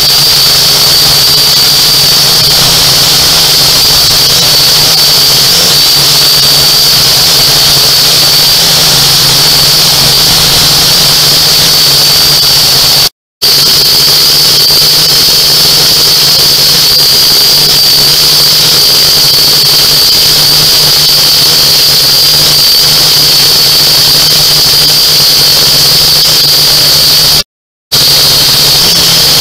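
Small drone's electric motors and propellers whining loudly and steadily, as heard from its onboard camera, with a high constant tone over a lower hum. The sound cuts out for an instant twice, about thirteen seconds in and near the end.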